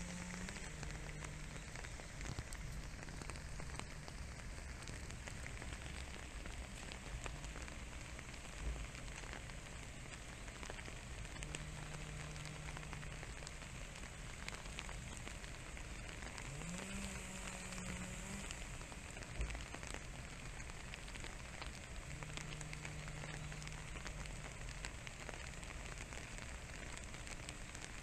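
Steady patter of light rain on leaves and grass. A faint low hum comes and goes several times, rising in pitch once past the middle.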